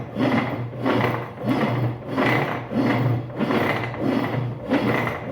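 Brastemp BWL11 washing machine agitating, its agitator driven back and forth in even noisy strokes about every half second over a steady motor hum. The noise is a fault in the agitation mechanism: everything points to a leak underneath that has left the gearbox dry and seizing.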